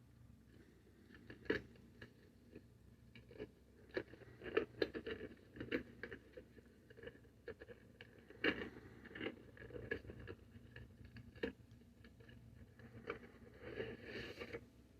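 Cardboard and plastic packaging of a trading-card collector box being handled and opened by hand: irregular scrapes, crinkles and clicks.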